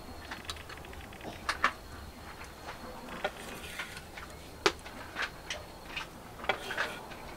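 Light, scattered clicks and taps of chopped green onion being picked from a wooden board and dropped onto a bowl of steamed egg and minced pork, irregular, about a dozen over the stretch, with a faint steady high tone behind them for the first half.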